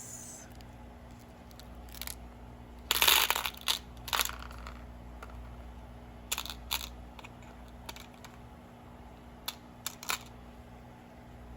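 Plastic bead packets being handled: short crinkling rustles and light clicks and taps. The loudest crinkle comes about three seconds in.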